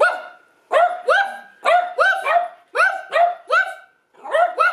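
Small dog barking over and over: short, high yaps in quick twos and threes, about two a second, with a short break near the end.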